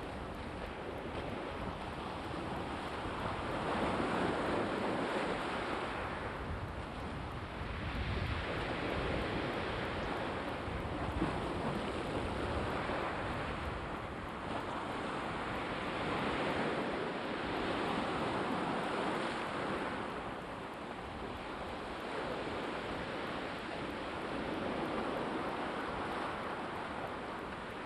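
Black Sea surf: waves washing onto the shore, the rush swelling and easing every few seconds.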